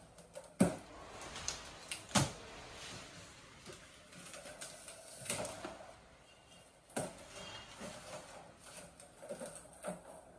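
The cardboard carton of a kids' 12 V ride-on car being opened and unpacked by hand: flaps and packing rustling, with sharp knocks and clacks as parts are handled. The loudest knocks come under a second in, about two seconds in and about seven seconds in.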